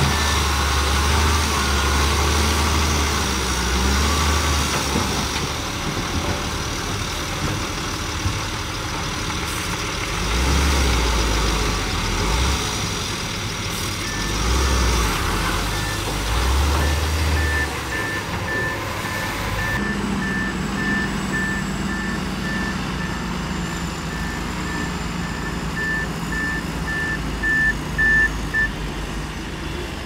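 Heavy diesel engine of a Shantui DH17B2 bulldozer working, its low rumble swelling and easing as the load changes. A reversing alarm beeps steadily from about halfway through until near the end.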